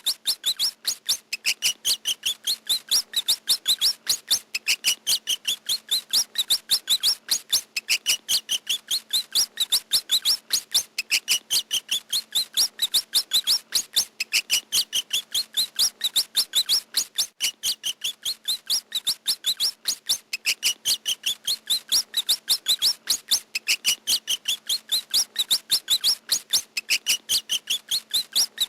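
Rat squeaking: a rapid, even run of short high squeaks, about five a second, their pitch climbing over every couple of seconds and then dropping back to start again, over and over.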